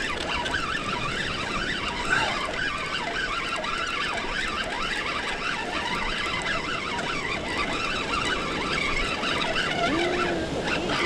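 Spinning fishing reel being cranked steadily under load, winding a hooked rockfish up the cliff face.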